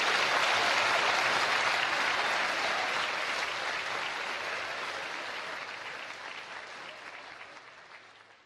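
Audience applauding after the punchline of a joke, the clapping fading out steadily over the last few seconds.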